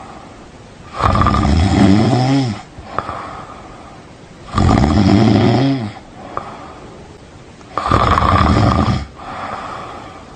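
A person snoring heavily: three long, loud snores about three seconds apart, each rising and falling in pitch, with quieter breathing between them.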